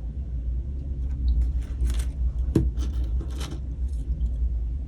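Several light clicks and rattles from small hard objects being handled, over a steady low hum.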